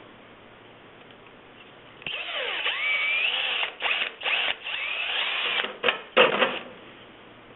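Electric drill with a number 33 bit drilling holes in the kiln's top section, in several short runs starting about two seconds in, the motor pitch rising and falling as the trigger is squeezed and eased.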